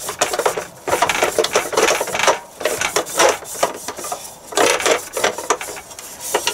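Damp cloth rubbing over the non-stick sandwich plates of an electric snack maker, in repeated wiping strokes about one a second.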